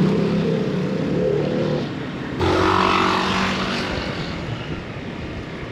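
Motor scooter engine running steadily while riding, over a rushing haze of road and wind noise; the sound changes abruptly about two and a half seconds in, with a different engine tone that then slowly fades.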